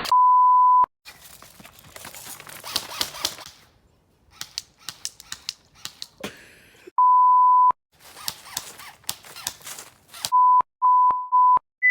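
Edited-in censor bleeps: a steady high beep at the start, another about seven seconds in, and a quick run of short beeps near the end. Between them come scattered sharp clicks and faint rustling.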